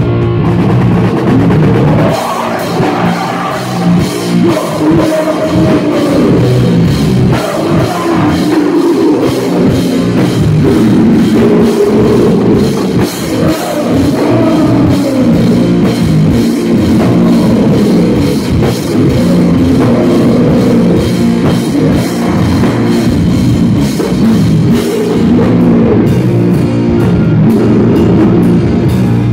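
A loud live rock band playing electric guitars, bass guitar and a drum kit. The cymbals and full drums come in about two seconds in.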